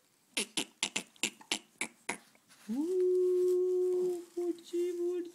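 A quick run of about eight sharp clicks, then a person humming one long steady note that breaks into shorter hums near the end.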